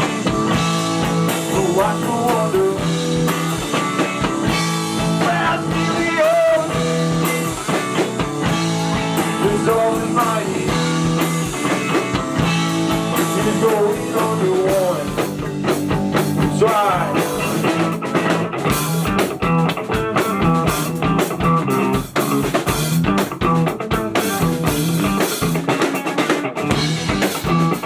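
Rock band playing an instrumental passage: guitar lines over a steady bass line and drum kit.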